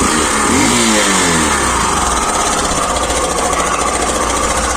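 Hero Glamour 125 BS6 single-cylinder engine running, its pitch falling away in the first second or so as the revs drop back, then running steadily. It has an odd-sounding note that the owner puts down to the bike standing unridden for a long time; a dealer blamed the cam-chain tensioner.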